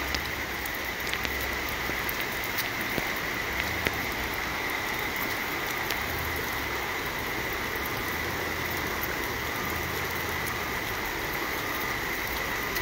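Steady tropical-storm rain, an even hiss with scattered sharp ticks.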